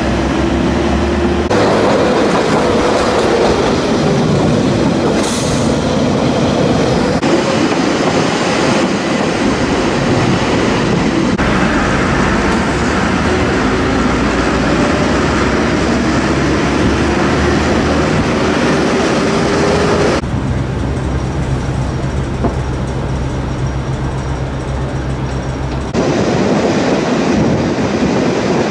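Narrow-gauge diesel train of the Ferrovie Appulo Lucane running on its 950 mm track: a steady rumble of wheels on rail with a faint whine that slides up and down in pitch. The sound changes suddenly several times.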